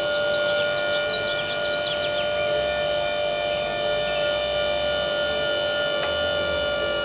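A loud, steady, siren-like tone with many overtones, held at one pitch throughout, with a few faint high chirps like birdsong in the first couple of seconds.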